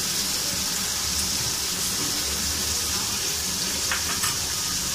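Fried tomato-and-spice masala sizzling steadily in its own released oil in a kadai, a dollop of yogurt just added on top. The oil has separated from the masala, the sign that the masala is fully fried.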